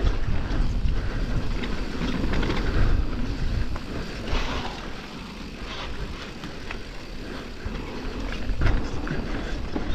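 Mountain bike riding fast down a dirt trail: a steady rumble of tyres over the ground, with scattered knocks and rattles from the bike.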